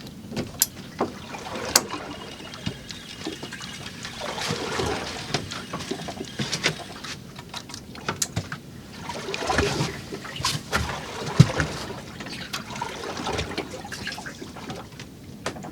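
Water lapping and slapping against the hull of a drifting boat, with scattered sharp clicks and knocks.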